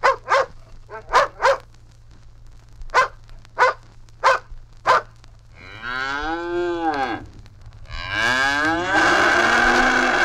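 A dog barks about eight times, short barks spaced out over the first five seconds, then a cow moos twice, the second moo long and lasting about three seconds. These are recorded domestic animal sounds played back from a flexi-disc record.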